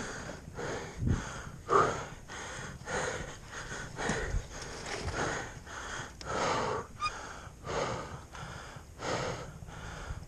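A dirt-bike rider breathing hard inside the helmet after exertion, with a heavy breath about every second and a half.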